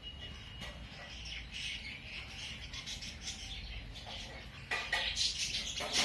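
Young budgerigars chattering and chirping, getting louder and busier near the end.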